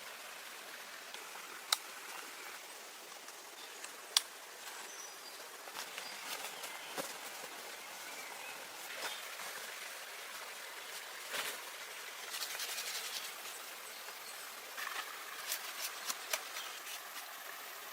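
Outdoor ambience: a steady hiss with scattered rustles and small clicks, busier in the second half, and two sharp knocks about two and four seconds in.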